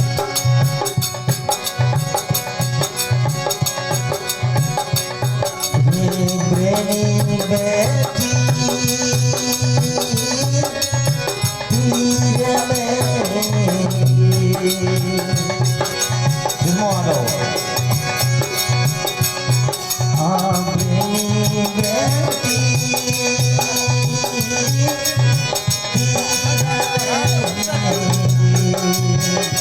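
Instrumental bhajan music: a gliding melody over a steady drum rhythm with a shaken rattle.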